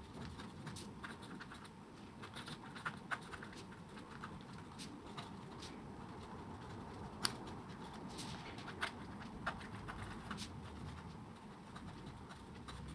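TWSBI Eco fountain pen with a 1.1 mm stub nib writing on journal paper: faint scratching of the nib with irregular small ticks as strokes start and lift.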